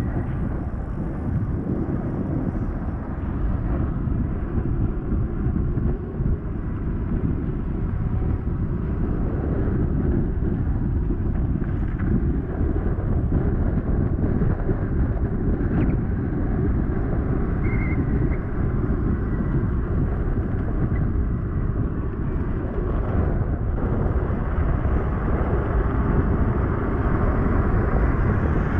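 Wind buffeting the microphone of a rider moving on an electric bike: a steady low rush with no engine note.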